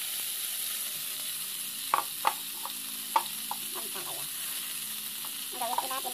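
Sliced bitter melon (ampalaya) tipped into a nonstick pan of onions, tomatoes and peppers frying in oil, which sizzle steadily, with three sharp knocks about two and three seconds in.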